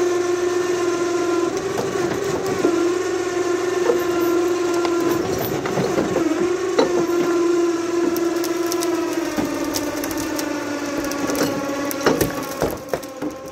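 A motor whining steadily under load while the heavy truck cab is lifted and tipped on the trailer, the pitch wavering a little. The whine fades near the end, when several sharp metal knocks and clanks come as the cab shifts.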